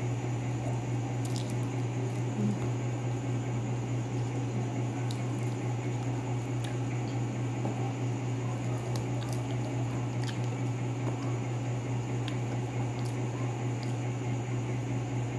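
Lansones being peeled by hand: soft, wet squishing of the skins coming away, with scattered small clicks and plastic-bag crinkles. A steady low hum runs underneath.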